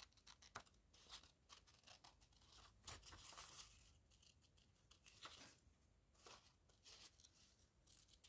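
Faint, irregular snips of scissors cutting a thin strip off a sheet of paper, with light paper rustling as the sheet is handled.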